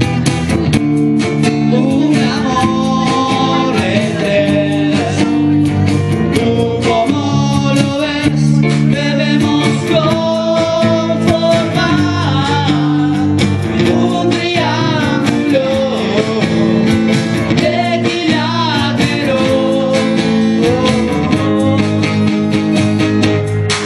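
Live band playing a song: strummed acoustic guitar with electric bass and keyboard, and a man singing the melody.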